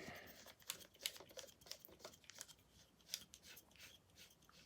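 Faint handling noises from a rangefinder camera and lens: scattered soft clicks and rustles, several a second.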